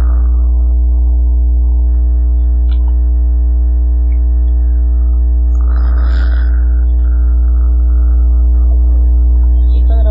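A person snoring, with one long rasping snore about six seconds in and the next one starting near the end, over a loud, steady low electrical hum.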